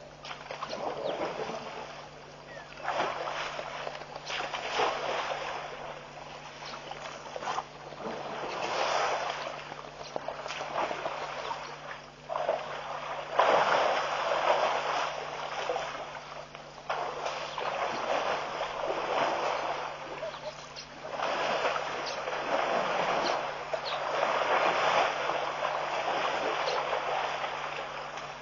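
Water splashing and sloshing in repeated surges as African bush elephants wade and churn the shallow pond, over a steady low hum.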